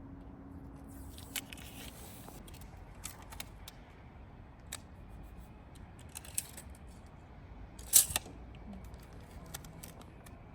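Intermittent crinkling, rustling and small clicks of vinyl decal sheet and tape being handled and applied, with a louder sharp crackle about eight seconds in.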